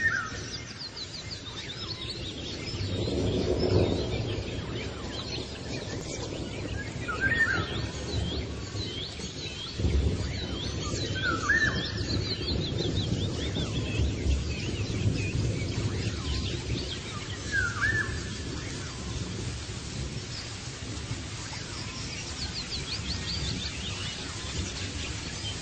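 Several small birds chirping and calling, with a few louder, lower calls scattered through, over a low rumbling background noise.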